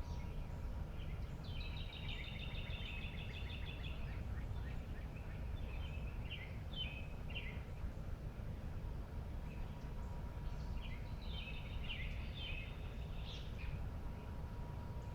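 Wild birds singing. Two longer trilled phrases of rapidly repeated notes come about two seconds in and again near twelve seconds, with shorter scattered calls between, all over a steady low background rumble.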